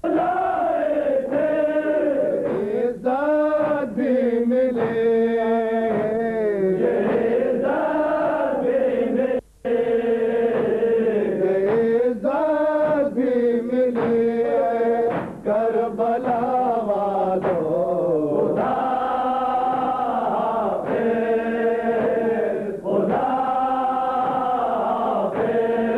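Men's voices chanting an Urdu noha, a Shia mourning lament, with no instruments, in long sung phrases. The chant breaks off briefly about nine and a half seconds in.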